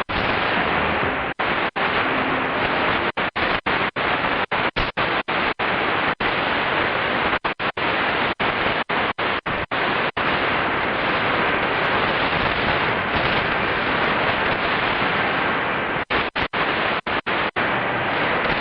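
Qodosen DX-286 shortwave receiver playing a steady hiss of band noise from its speaker. The noise cuts to silence for a split second dozens of times, thickly over the first half and again near the end, as the set mutes while it is tuned step by step through the 60 metre band.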